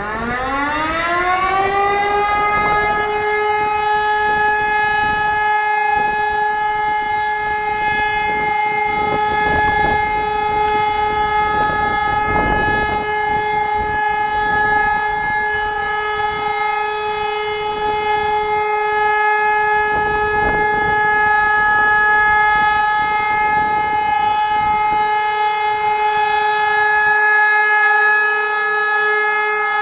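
E57 electromechanical civil-defence siren spinning up: its tone rises over the first two seconds, then holds a steady pitch.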